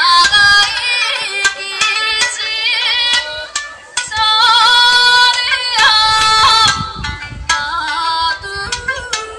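A woman singing Amami shima-uta, held notes with wavering ornaments, accompanying herself on the sanshin with sharp plucked notes, amplified through stage speakers.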